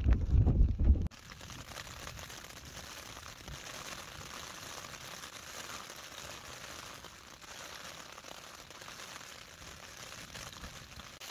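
Rain pattering steadily on a tent's flysheet, heard from inside the tent as an even hiss. Before it, background music stops abruptly about a second in.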